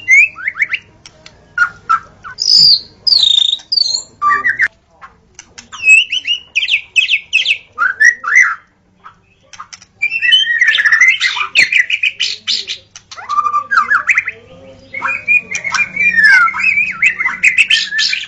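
Wild white-rumped shama singing: a varied run of loud whistled phrases, quick chirps and harsh notes in bursts, with a short pause about nine seconds in.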